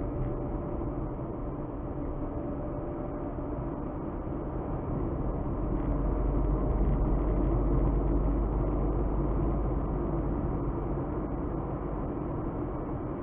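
Car driving along: steady engine and tyre noise, with the low rumble growing louder for a few seconds in the middle and then easing back.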